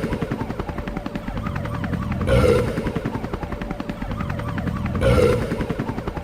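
Burping, looped: a rapid rattling pulse runs throughout, with a louder burp about two seconds in and again about five seconds in.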